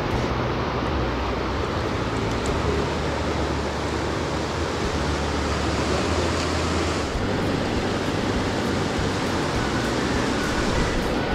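Fast trout stream rushing over rocks in riffles and small rapids: a steady, even rush of whitewater.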